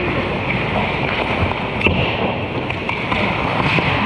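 Ice hockey play on an indoor rink: skate blades scraping the ice and sticks clacking against the puck and each other over steady arena noise, with a few sharp clicks.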